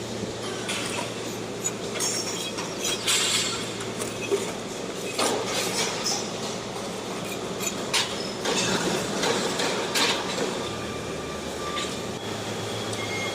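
Construction-site noise: a steady machine hum under a haze of noise, with scattered metallic knocks and clinks.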